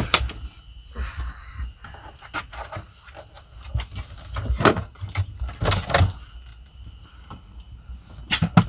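Folding rear bench seat of a van being unlatched and lowered into a bed: scattered clunks and clicks from its latch and frame, loudest about five and six seconds in and near the end.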